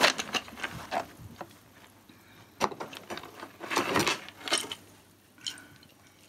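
Strings of wooden beads and segmented rods of a ritual flail clicking and rattling against each other as it is handled and lifted. The clicks are irregular, in short clusters, the loudest at the start and about four seconds in.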